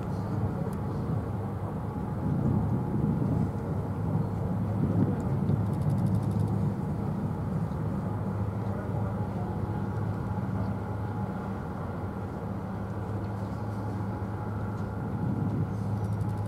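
Steady low drone of a large ship's engines carried across the water, holding an even hum as the vessel moves slowly past.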